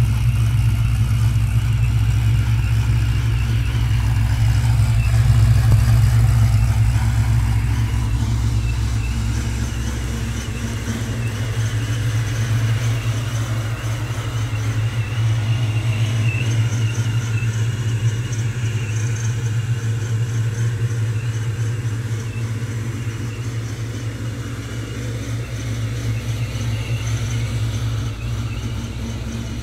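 Supercharged Ford Mustang GT's 4.6-litre V8 idling steadily, with a deep, even low rumble that swells slightly about five seconds in.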